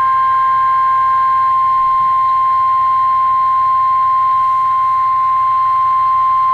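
NOAA Weather Radio 1050 Hz alert tone, one steady high-pitched tone held unbroken, heard through a weather radio receiver. It signals that a severe weather watch or warning broadcast is about to follow.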